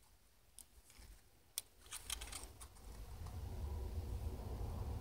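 Small scissors snipping paper a few times in short separate cuts, trimming the edges of a paper snowflake. A low rumble builds from about two seconds in.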